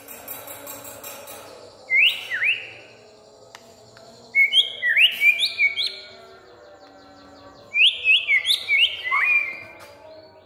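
White-rumped shama (murai batu) singing loud whistled song in three bursts: a short phrase about two seconds in, a longer one midway and another near the end, each a quick run of notes sweeping up and down.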